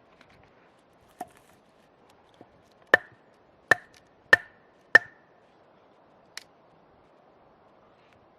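Four hard chopping blows of a tool on wood, about two-thirds of a second apart, each with a brief ring. A lighter knock comes before them and another after.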